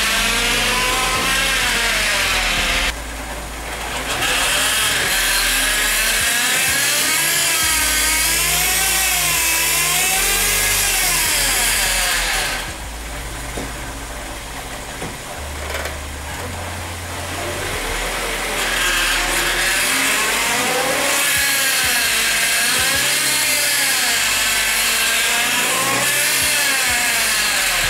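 Kia Sportage's A6MF1 six-speed automatic transmission running in gear with the engine, the wheels spinning freely, giving off a loud foreign noise with a whine that wavers up and down in pitch and goes quieter for several seconds in the middle. The mechanic judges it a mechanical fault inside the gearbox, loudest near the oil pump and filter.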